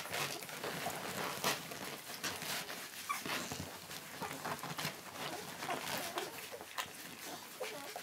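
Two-week-old barbet puppies nursing: irregular wet suckling clicks and smacks, with a few small squeaks and the shuffle of pups on the bedding.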